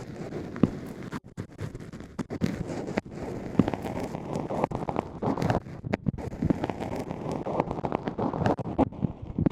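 ASMR ear-cleaning sounds picked up close in a microphone's ear canal: continuous scratchy rustling and scraping with frequent small crackles and brief gaps.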